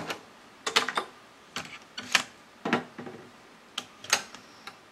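Nakamichi LX-5 cassette deck being handled: a string of about eight sharp mechanical clicks and clunks, irregularly spaced, from its transport buttons and cassette door as playback is stopped and the tape is taken out.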